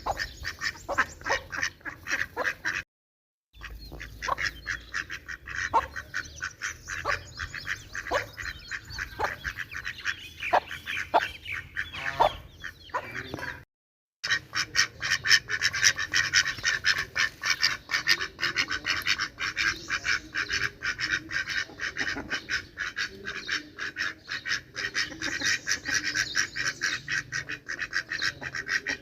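A flock of domestic ducks quacking in rapid, overlapping calls. There are two brief cuts to silence, about three seconds in and again around fourteen seconds, and the quacking is denser and louder after the second cut.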